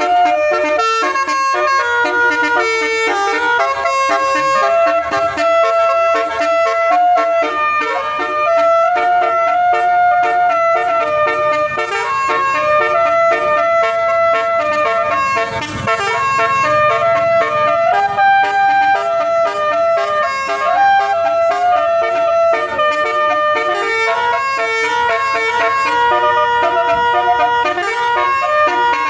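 Multi-tone 'telolet' musical air horn of an Indonesian bus playing a melody, its tones stepping from note to note without a break.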